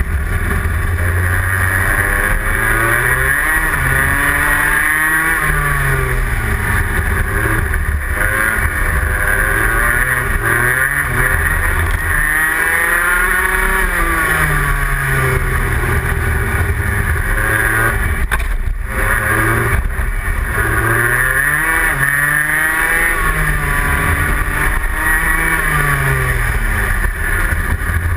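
Rotax Senior Max kart's 125 cc single-cylinder two-stroke engine at racing speed, heard onboard. It revs up hard on the straights and drops off into the corners, over and over, through a lap.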